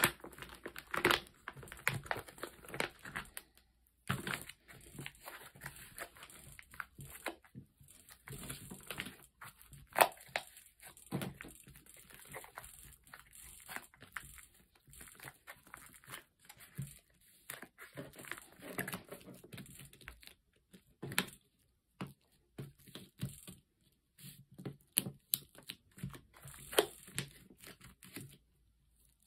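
Clear plastic zipper bag crinkling and rustling in irregular crackles as hands press and smooth a bag of mashed soybean-and-koji miso to squeeze out the air, with short pauses between handlings.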